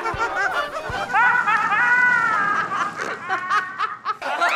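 Hearty laughter from several people in turn, including one long, drawn-out laugh about a second in.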